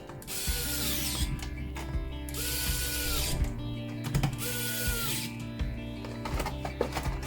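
Cordless electric screwdriver running in three short bursts of about a second each, its motor whine rising as it starts and falling as it stops, driving the screws back into a laptop case.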